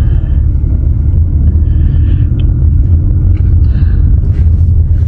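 Loud, steady low rumble with a few faint, brief higher sounds over it.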